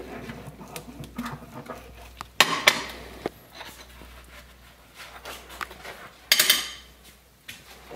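Dishes being washed up by hand: plates, a glass and cutlery clinking and clattering as they are scrubbed and set down, with two louder clatters, one about two and a half seconds in and one near six and a half seconds.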